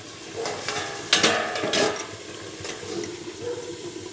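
Metal spatula scraping and clinking against a steel lid and pan, loudest between about one and two seconds in, over the low sizzle of chicken and potato curry cooking down under the lid as its water dries off.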